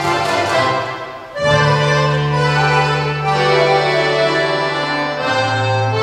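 Accordion ensemble with electronic keyboard playing, with rapid typewriter key clicks as percussion in the first half second. After a short dip about a second in, the ensemble holds long sustained chords over a steady bass note that steps down near the end.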